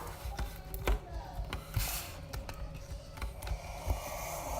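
Slime containers and packaging being handled: scattered soft knocks and a couple of brief rustles.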